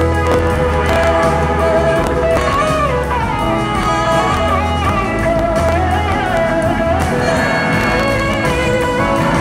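Live band playing soul-blues rock: an electric guitar lead with smoothly sliding notes over steady bass and the full band.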